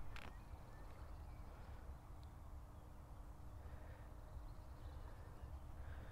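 Faint outdoor background: a steady low rumble with a short click or two right at the start.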